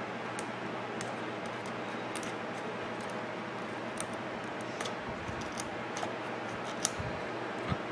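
Scattered small clicks and ticks of a screwdriver and the metal brush-holder spring and clip on the blender's motor, with two louder clicks near the end, over a steady hiss.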